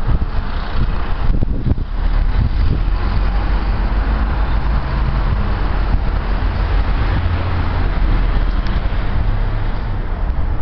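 Volvo truck's diesel engine running close by, a steady low hum.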